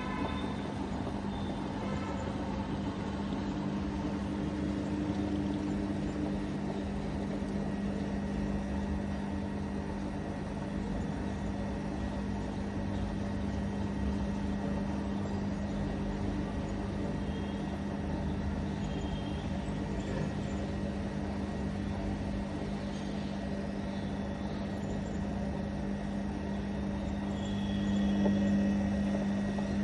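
IFB washing machine on its spin cycle, a steady hum over a rumbling noise that swells slightly near the end: the spin noise that is the machine's fault.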